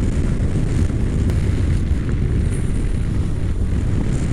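Honda NC700X's parallel-twin engine running as the motorcycle is ridden along, mixed with wind rushing over the microphone. A steady low rumble with no change in pitch.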